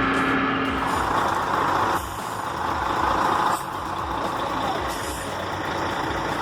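A heavy truck or heavy machine running, with a hiss over the engine noise. The sound changes abruptly about a second in, again at two seconds and again at about three and a half seconds.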